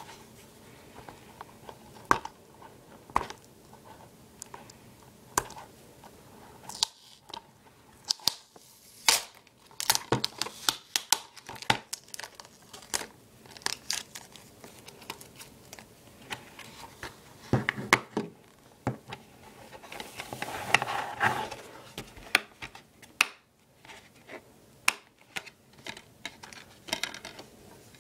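Plastic shrink wrap being torn and crinkled off a DVD case, amid scattered clicks and taps of the plastic case being handled and opened. A longer stretch of crinkling comes about three-quarters of the way through.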